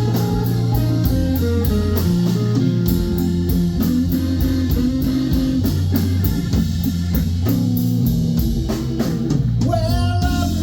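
A live blues band plays a slow blues, with electric guitar lines over bass and drums and a steady cymbal tick.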